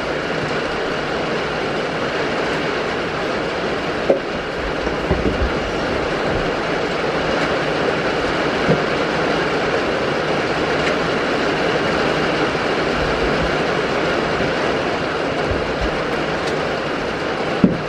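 Steady rain falling on the goat shed's roof and the yard, an even hiss, with a few sharp knocks about four seconds in and near the end.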